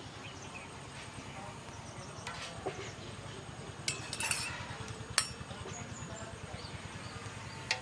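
Steel spoon clinking against a small stainless steel bowl as kewra water is spooned out of it, a few sharp clinks, the loudest about five seconds in.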